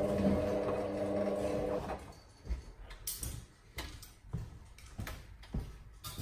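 Hotpoint WM63P washing machine's drum motor humming as the drum tumbles a load of towels, then stopping about two seconds in. In the pause that follows there are scattered soft knocks and clicks from the machine.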